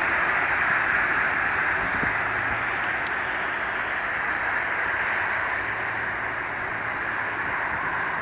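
A Lockheed C-130J Super Hercules on its takeoff run, its four Rolls-Royce AE 2100D3 turboprops at takeoff power, giving a steady propeller drone with a low hum under it. The sound fades slowly as the aircraft rolls away and lifts off near the end.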